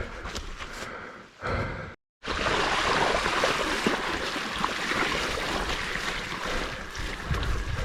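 Steady rushing noise outdoors on a wet trail, with scattered knocks and clicks in the first two seconds; after a sudden break about two seconds in, the rushing comes back louder and even.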